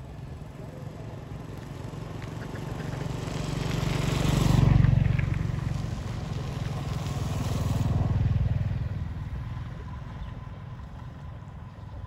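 A motor vehicle's engine passing by: it grows louder, peaks about five seconds in, dips, swells again around eight seconds, then fades away.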